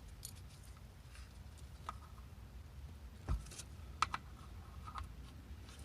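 Scattered light metallic clicks and clinks as metal parts and tools are handled while lining the differential up with its mounting hole to fit the bolts. There is a dull knock about three seconds in and a sharper, ringing clink just after four seconds.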